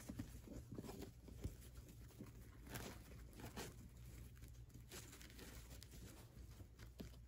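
Faint rustling and small scattered clicks of a fabric ribbon being handled and tied into a bow, over a low steady hum.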